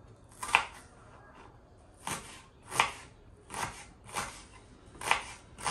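Knife dicing a shallot on a wooden cutting board: about seven separate cuts, each a short knock of the blade through the shallot onto the board, spaced roughly half a second to a second and a half apart.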